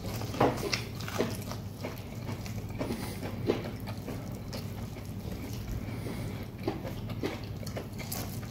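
Person biting and chewing boiled corn on the cob: irregular short, sharp mouth clicks over a steady low hum.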